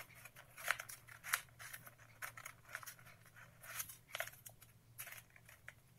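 Colored paper being folded and creased by hand: faint, irregular rustles and crinkles, a handful of short strokes a second or so apart.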